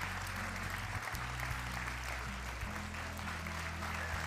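Audience and children applauding, with a steady patter of claps, over background music whose low held notes change every second or so.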